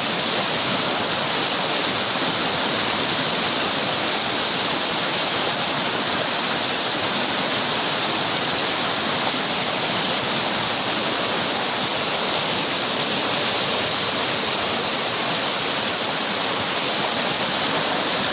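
Flash floodwater rushing and churning in a steady, loud roar.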